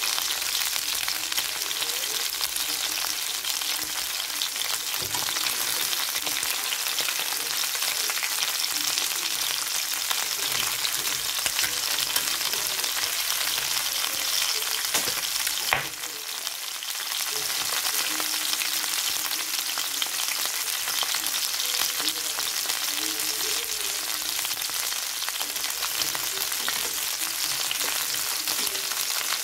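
Chicken drumsticks frying in a stainless steel pan: a steady crackling sizzle of hot fat, which dips briefly about halfway through.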